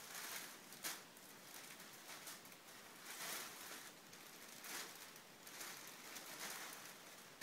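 Shiny wrapping paper crinkling and rustling as it is pulled and bunched by hand, in faint, irregular bursts of rustle.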